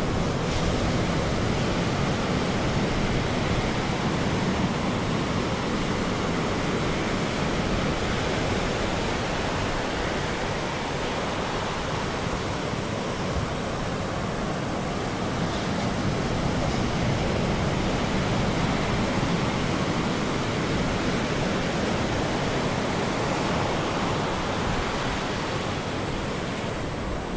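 Big ocean surf breaking: a steady, even rush of noise with no single crash standing out.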